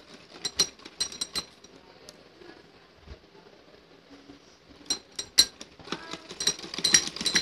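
Sewing machine: scattered metallic clicks and clinks as the trimmed net fabric is positioned under the needle, then the machine starts stitching near the end in a quick run of rapid clicks.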